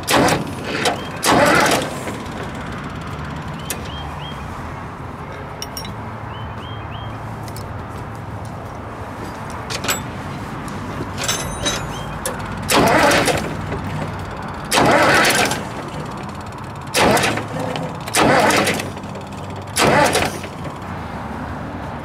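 Case 930 tractor's diesel engine being bumped over with the electric starter in short bursts, about seven brief cranks, most in the second half, turning the camshaft to set a valve for lash adjustment. A steady low engine drone runs underneath.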